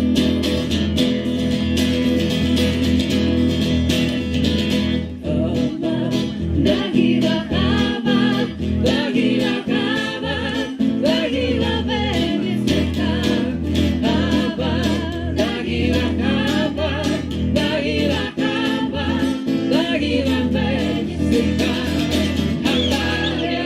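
Music: voices singing together over guitar accompaniment.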